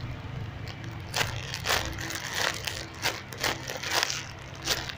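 Crinkling and crunching of a homemade squishy toy being squeezed and handled, in several irregular short crackles.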